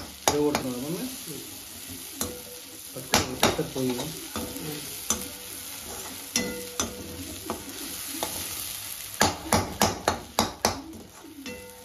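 Metal slotted spoon stirring and scraping in a kadai, knocking against the pan in quick runs of clicks, while mutton brain with onion and green chilli fries in oil with a steady sizzle.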